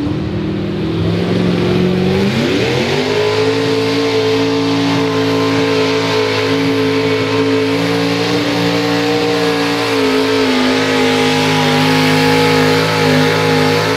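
Modified pulling tractor's engine running at low revs, then revving up sharply about two seconds in and holding at high, steady revs under load as it drags the weight sled, with a slight dip in pitch about ten seconds in.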